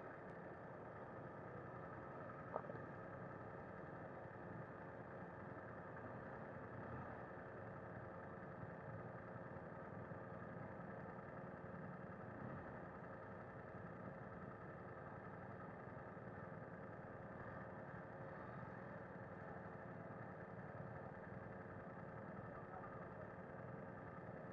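BMW F 900 R's parallel-twin engine running faintly and steadily at low revs while the bike rolls at low speed, with one short click about two and a half seconds in.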